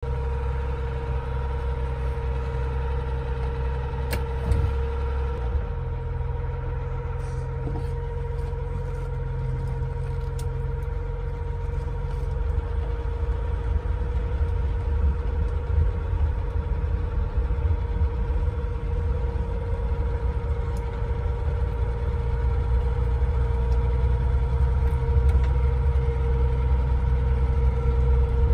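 1971 BMW Bavaria's straight-six engine heard from inside the cabin, idling near 1,000 rpm and then pulling away at low speed; its low hum grows louder in the second half. A steady whine runs alongside, with a single click about four seconds in.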